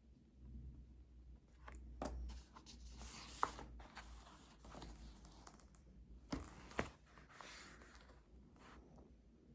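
Paper rustling and sliding in a few short spells, with three sharp small knocks, from desk work with papers.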